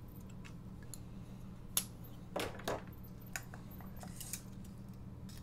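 Scattered light clicks and a couple of short rattles from handling a folding knife and a Stanley steel tape measure as the tape is pulled out along the knife.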